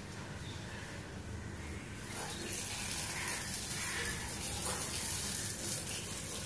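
Water spraying from a plastic hose spray gun onto a motorcycle: a steady hiss of water that becomes louder and sharper about two seconds in.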